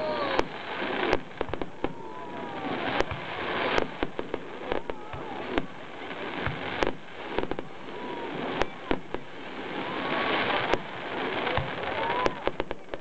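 Fireworks display: irregular sharp bangs of shells bursting, a dozen or more, over a continuous hissing crackle.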